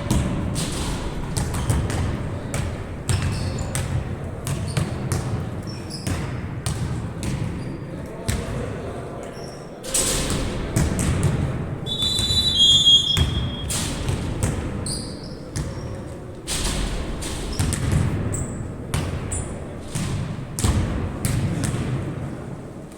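Indoor basketball game: a ball bouncing with repeated sharp thuds, over a background of players' and spectators' voices in an echoing gym. About twelve seconds in, a referee's whistle blows briefly.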